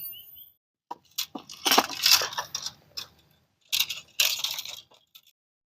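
Handling noise close to the microphone: a few sharp clicks and irregular rustling in short bursts, with dead silence between them.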